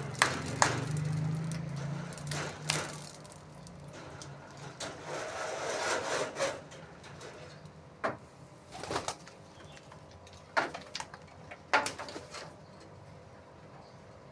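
Domestic pigeons pecking at scattered grain on stony ground, a series of sharp taps, with low pigeon cooing during the first few seconds.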